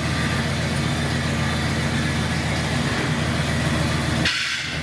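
1977 Buick Regal's engine running at a low, steady idle through a freshly installed dual exhaust, with the car creeping forward. About four seconds in, a brief hiss cuts across while the low rumble drops out for a moment.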